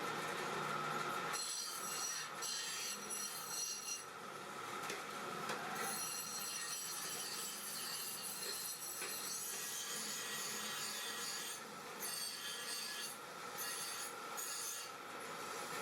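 Scraping and rubbing strokes of a hand tool working metal, in stretches broken by a few short pauses.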